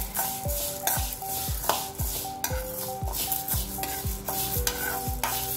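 A spoon stirring and scraping dry-roasting lentils and curry leaves in an aluminium kadai, under background music with a steady thumping beat and a repeating melody.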